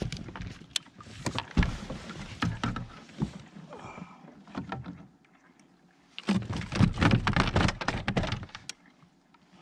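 Knocking and scraping of gear on a fishing kayak, in short irregular bursts, with a louder, denser stretch of about two seconds starting a little after six seconds in.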